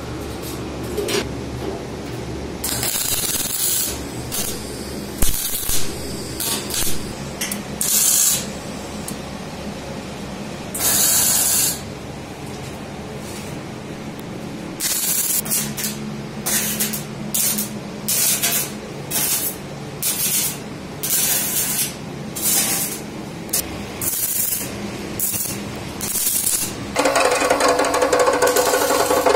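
Repeated short bursts of hiss, each under a second, coming about once a second through much of the stretch. Near the end an abrasive chop saw's cut-off wheel starts running, loud and steady.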